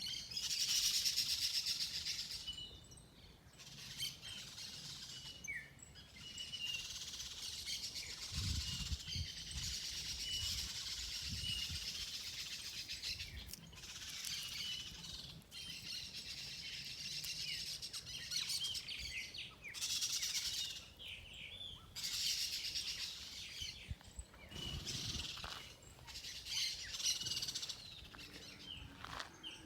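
A chorus of many birds chirping and singing, with dense high twittering that comes in stretches of a few seconds broken by short pauses, and single clear notes standing out.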